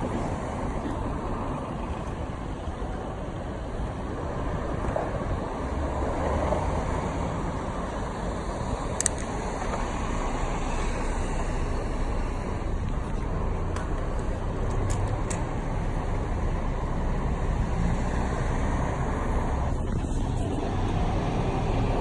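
Road traffic: cars and buses passing on a city street, a steady rumble, with a short click about nine seconds in.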